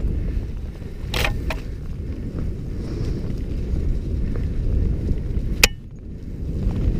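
Wind rushing over the microphone and trail rumble from a mountain bike riding fast along forest singletrack. Two sharp knocks come about a second in, and a louder one near the end, after which it briefly goes quieter.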